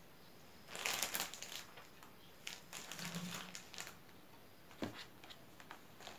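Close-miked eating and handling sounds of roti sai mai (soft Thai roti with cotton-candy floss): chewing mouth sounds and a plastic bag crinkling. A loud crackling burst comes about a second in, more crackles follow between about two and a half and four seconds, and a few sharp clicks come near five seconds.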